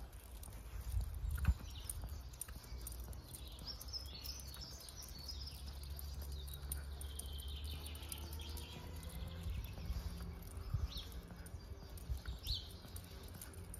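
Small songbirds chirping and calling in scattered short phrases over a steady low rumble, with a few soft thumps.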